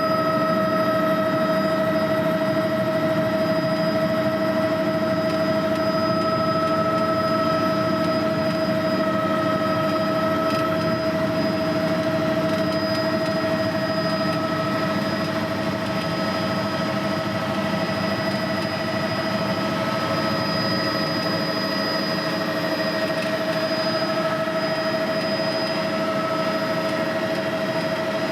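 Helicopter in steady flight, heard from aboard: a constant engine and rotor drone with several steady high whining tones over it.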